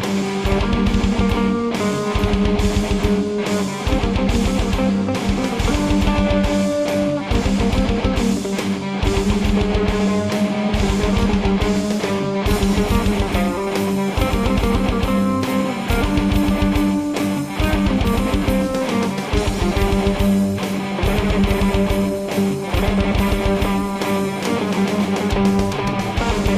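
Instrumental rock jam: guitar playing sustained chords and riffs over a steady drum-kit beat, improvised.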